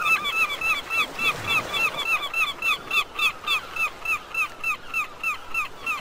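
A gull calling in a long, fast, regular series of short notes, about four a second, each note rising and falling in pitch.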